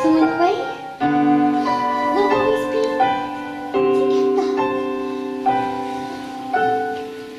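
Piano accompaniment playing slow, held chords that change about every second, growing quieter toward the end.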